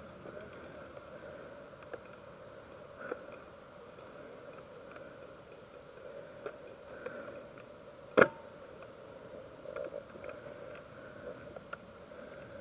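A single sharp snap about eight seconds in, over a faint steady hum and a few small ticks.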